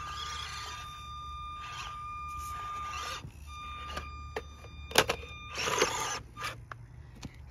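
Electric motor of a small RC rock crawler whining at one steady high pitch, then several sharp knocks and a brief clatter about five seconds in as the truck tumbles over onto the rocks.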